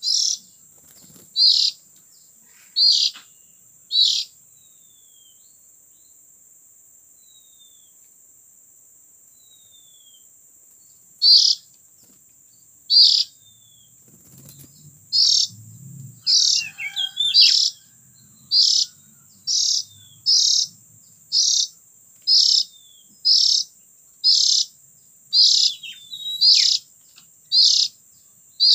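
Oriental magpie-robin calls: short sharp chirps repeated about once a second, with a pause of several seconds early on, over a steady high insect-like hiss and a brief rustle near the middle.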